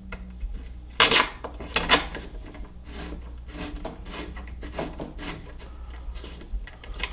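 A long M5x45 screw being started by hand into a hole in a 3D printer's frame, then turned with an Allen key. There are scraping rubs about one and two seconds in, then small, uneven scratches and ticks as the key turns.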